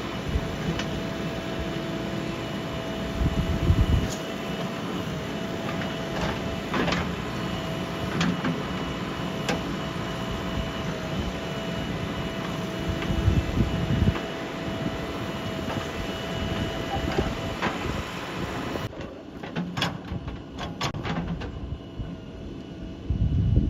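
JCB 3DX backhoe loader's diesel engine running steadily with a constant whine, broken by scattered clanks and knocks and three heavier low thumps as the machine works. About 19 seconds in the sound turns thinner, with a quick run of sharp clicks.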